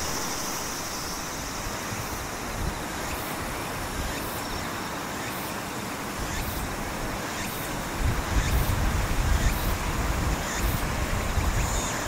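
Outdoor ambient noise: a steady rush like distant road traffic, with a louder low rumble from about eight seconds in and faint high ticks about once a second.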